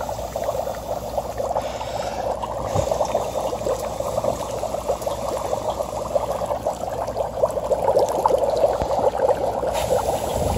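Dry ice bubbling in a stainless steel bowl of water: a steady, dense, fizzing gurgle of carbon dioxide bubbles breaking the surface as the ice sublimates. A low thump comes near the end.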